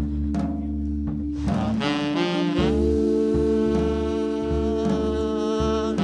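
Live jazz: a tenor saxophone comes in about a second and a half in, bends up and then holds a long note over sustained Hammond organ chords and bass notes.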